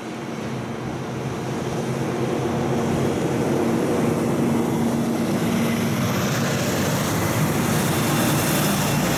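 Heavy diesel truck and trailer approaching and driving past close by: its engine hum grows louder over the first few seconds and then holds, with tyre noise on the wet road rising as it draws level near the end.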